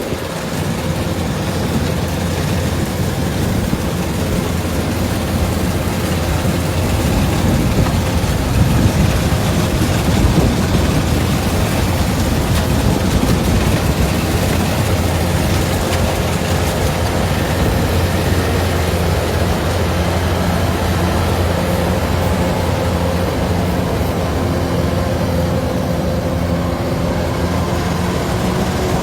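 Kubota DC-105 rice combine harvester running steadily at working speed, its diesel engine and threshing machinery giving a continuous hum and clatter.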